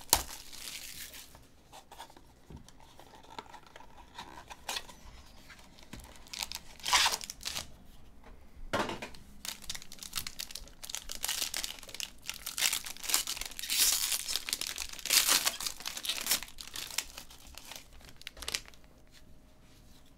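Cellophane shrink-wrap torn off a trading-card box, then a silver foil card pack crinkled and ripped open. The sound comes in short, irregular bursts of tearing and crinkling that get denser and louder past the middle.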